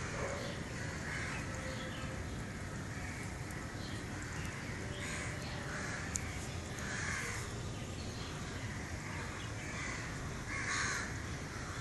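Birds calling several times, a second or two apart, the last call near the end the loudest, over a steady low background noise.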